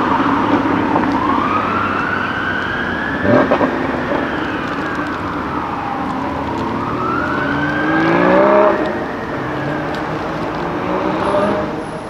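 An emergency-vehicle siren wailing, slowly rising and falling in pitch through about two cycles, over street traffic. A brief loud burst comes about three seconds in, and a car engine accelerates, rising in pitch, as the loudest moment past the middle.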